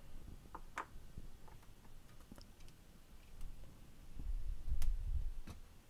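Small sharp plastic clicks and taps from a model locomotive's body shell and chassis being handled on a work mat, with a soft low rubbing bump about four to five seconds in as the shell is picked up.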